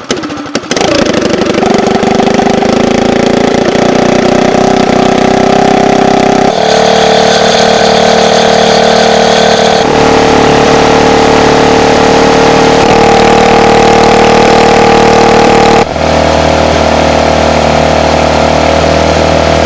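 SPS Longtail mud motor engine starting and then running loud and steady, freshly filled with synthetic 10W-30 oil. Its note changes abruptly a few times.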